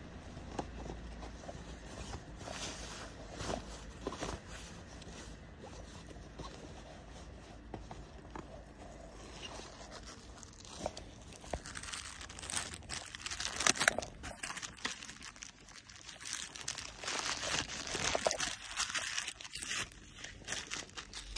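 Irregular footsteps with crunching and clicking, busier and louder from about halfway through, over a low rumble at the start.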